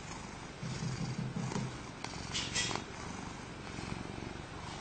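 Ginger-and-white domestic cat purring, a low pulsing rumble that is strongest in the first couple of seconds and then fades to a softer purr.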